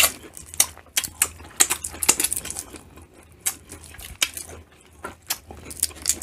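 Shells of cooked shrimp being peeled and cracked apart by hand close to the microphone, along with eating sounds: a run of small, irregular crackles and clicks.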